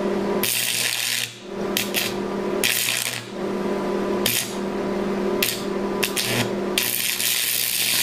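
Welding arc from an old arc welder at 120 amps, drawn off a copper-stripped carbon gouging rod into a ceramic crucible of chromium and aluminum oxide powder for making synthetic ruby. The arc crackles in short hissing bursts as it catches and breaks about six times, then holds steady from about seven seconds in, over a steady electrical hum.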